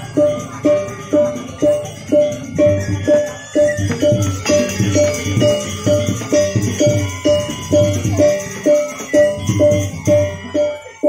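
Balinese gamelan playing barong accompaniment: metallic gong-chime strikes on a steady, even beat about twice a second, over low drum strokes.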